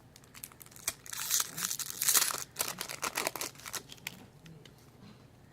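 Foil-plastic Magic: The Gathering booster pack wrapper crinkling and tearing as it is ripped open. A loud spell of crackling starts about a second in, followed by a string of sharp crinkles and rustles that die away near the four-second mark.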